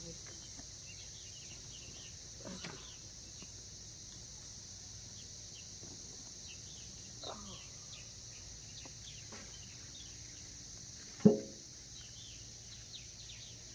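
Outdoor background of a steady high insect drone with scattered bird chirps. About eleven seconds in there is one loud, short sound.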